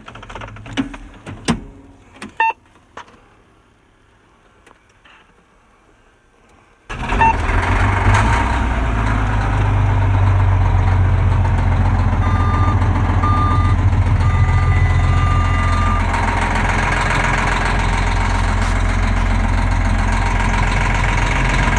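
Steiger 375 four-wheel-drive tractor's diesel engine comes in suddenly about seven seconds in and then runs steadily, after a few quiet clicks and knocks. A few short, high beeps sound over the engine in the middle.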